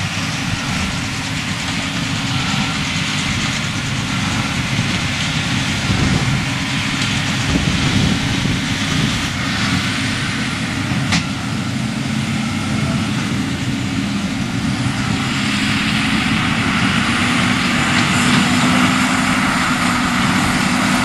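JCB Fastrac tractor's engine running steadily as it tows a loaded bale trailer past, growing a little louder in the last few seconds, with a single sharp click about eleven seconds in.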